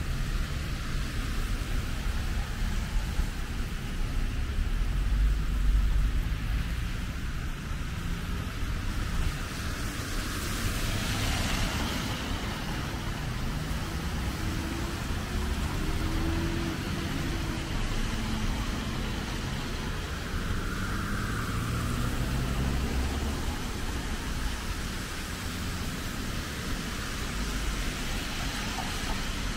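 Road traffic passing on wet asphalt: steady tyre hiss and engine rumble from cars going by, with one car passing close about eleven seconds in, its wet-tyre hiss swelling and fading.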